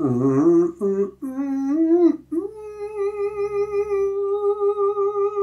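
A man's voice doing the 'squeaky door' exercise. It climbs in a few short sliding phrases, then from about two seconds in lands on a held A-flat 4 with a slight vibrato. The note is sung with the mouth barely open, in head voice with cord closure and no falsetto.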